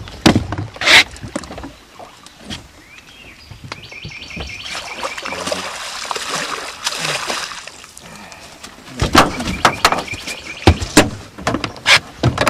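A hooked striped bass thrashing and splashing at the surface as it is scooped into a landing net, with a run of sharp knocks and thumps from about nine seconds in as the netted fish and net are lifted into the boat. Loud knocks also come twice near the start.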